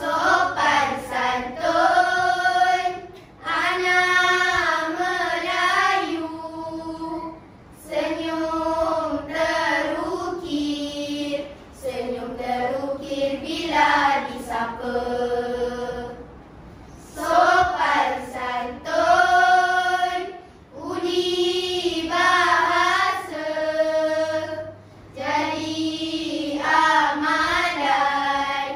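A children's choir of schoolchildren singing in unison in phrases of a few seconds, each followed by a short pause.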